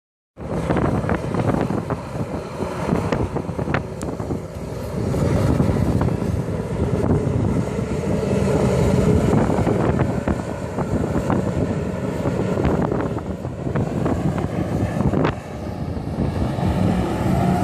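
Personal watercraft engine running hard to drive water up the hose of a Jetovator, with the rush of the water jets and wind buffeting the microphone.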